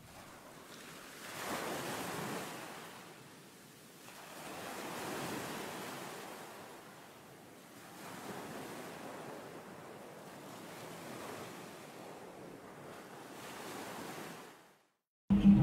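Small sea waves washing onto a stony shore, the surf noise swelling and fading every few seconds. Right at the end, strummed acoustic guitar music comes in.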